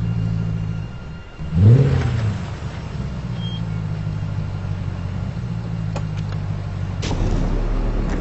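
An Audi saloon's engine running with a steady low hum, revved once about a second and a half in, the pitch rising and then falling. A sharp clunk near the end, as the car door opens.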